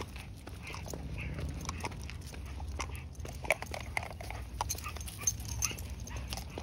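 A dog making a series of short, high little sounds, with scattered small clicks and a steady low rumble underneath.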